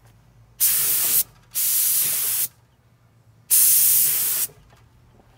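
Air-powered gravity-feed paint spray gun triggered in three bursts of about a second each, each a loud steady hiss of compressed air and paint that cuts off sharply.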